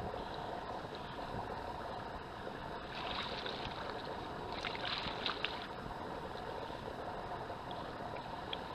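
Steady rushing water noise, with two short bouts of splashing about three and five seconds in.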